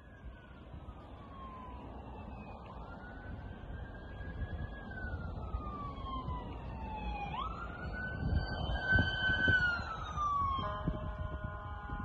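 A siren wailing in slow rising and falling sweeps, growing louder, over a low rumble of wind on the microphone. Near the end the sweeping gives way to several steady pitches sounding together.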